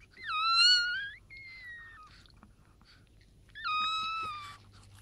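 Newborn Chihuahua puppies squealing as their mother licks them clean. There is a loud high-pitched squeal of about a second at the start, a fainter one right after it, and another loud one about three and a half seconds in.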